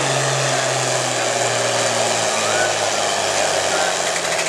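John Deere diesel farm tractor pulling a weight-transfer sled at full throttle. Its engine note slowly drops as it lugs down under the load.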